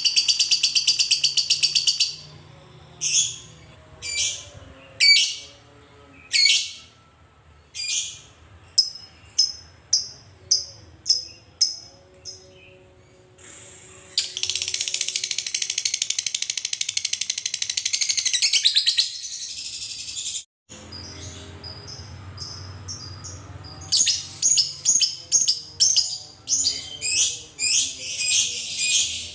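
Fischer's lovebird calling: a long, rapid, high-pitched chattering trill (the 'ngekek') at the start, then separate sharp chirps that come faster and faster. A second long trill of about five seconds follows midway, and a quick run of chirps comes near the end.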